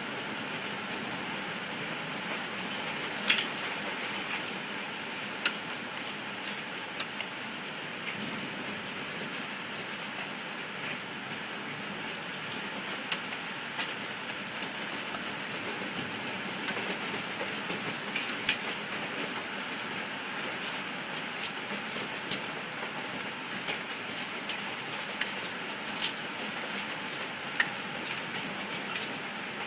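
Hail pelting a patio: a dense, steady patter of small hits, with a louder sharp crack every few seconds at irregular intervals.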